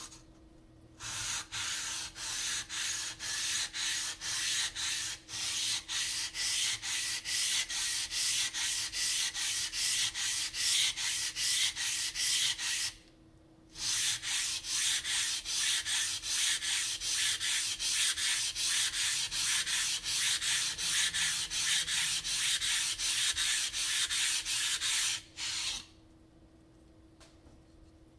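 Atoma #140 coarse diamond plate scraping back and forth across a Naniwa Chosera 400 whetstone in quick, even strokes, flattening the stone. The strokes stop briefly about halfway through and end a few seconds before the close.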